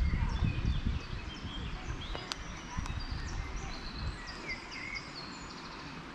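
Several songbirds chirping and singing in the surrounding woodland, many short high calls overlapping, over a low rumble on the microphone that is strongest in the first second.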